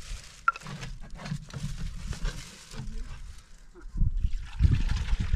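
Water poured from a plastic jerrycan into a plastic ewer, gurgling, louder from about four seconds in.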